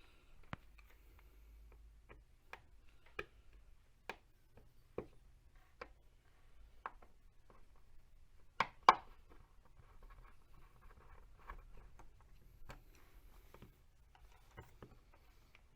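Scattered light clicks and taps of small parts being handled while an RC crawler's steel beadlock wheel is put together, with two sharper knocks close together about nine seconds in.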